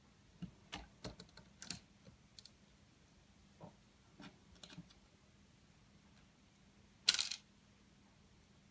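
Light clicks and taps of plastic parts being handled as a small replacement speaker is set into an alarm panel's plastic housing, with a louder brief scrape near the end.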